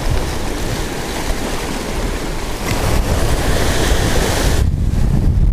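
Ocean surf washing and breaking against a lava-rock shoreline, with strong wind buffeting the microphone as a low rumble. The surf's hiss drops away abruptly near the end while the wind rumble grows.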